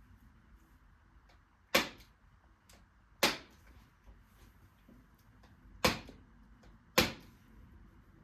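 Hand-held chiropractic adjusting instrument firing four sharp clicks, spaced about one to two and a half seconds apart, as it delivers adjustments to the lower back.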